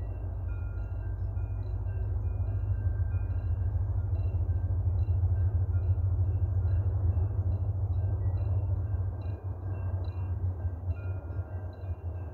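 Railway level-crossing warning bell of the 'orchestra' type ringing, a repeating electronic chime of several notes. Under it is a low rumble that swells to its loudest about halfway through and eases off near the end.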